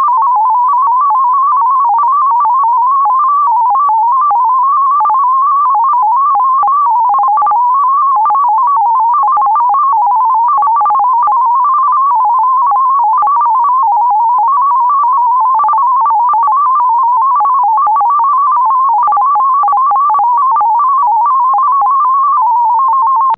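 DominoEX 22 digital radio data signal: a single tone stepping rapidly among many pitches around 1000 Hz at a constant level.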